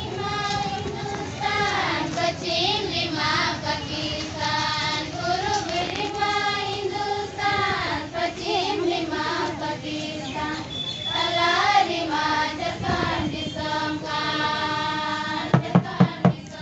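A group of Santal women singing a folk song together in unison, on long held notes that glide up and down. About a second before the end, loud hand-drum strokes come in from a barrel drum (madal) and a round hand drum.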